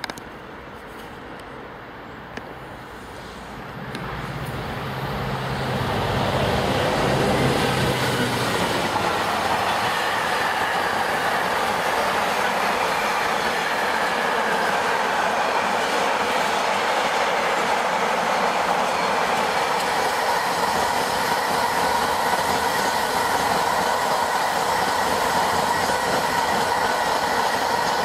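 Class 66 diesel locomotive approaching and passing, its two-stroke V12 engine's low drone swelling to a peak about seven seconds in. It is followed by the steady rolling and clatter of a long train of container wagons going by, with a steady high whine.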